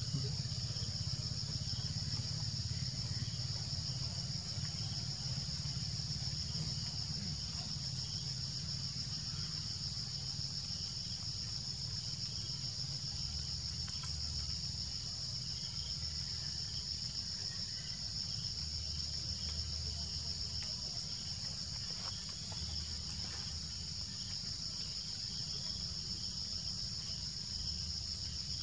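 A chorus of insects droning steadily at a high pitch, over a low steady rumble.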